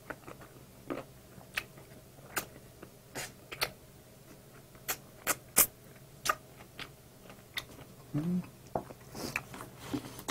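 Close-miked wet chewing and lip-smacking on a sauced barbecue chicken drumstick: irregular sharp mouth clicks, a few a second, with a short low vocal sound about eight seconds in.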